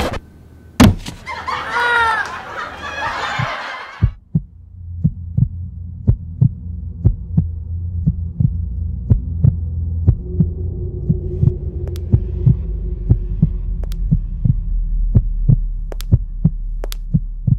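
A low steady hum with sharp clicks about twice a second, a pulsing sound-design bed. It follows a brief gliding, voice-like sound in the first four seconds.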